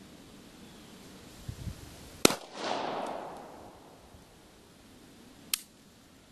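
A single shot from a Steyr Hahn M1912 pistol firing a handloaded round, a sharp report about two seconds in followed by a rolling echo that fades over a second or so. A smaller sharp click follows about three seconds later.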